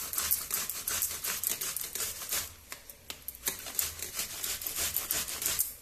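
An apple being grated on a stainless steel box grater: quick, repeated rasping strokes, several a second, with a short break about two and a half seconds in before the strokes start again.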